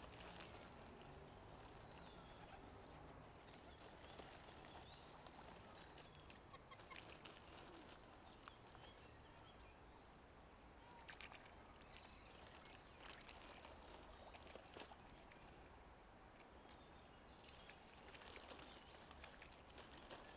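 Faint sounds of waterfowl feeding in the shallows: scattered soft clicks and light splashes of bills working at the water's surface, with faint fowl calls.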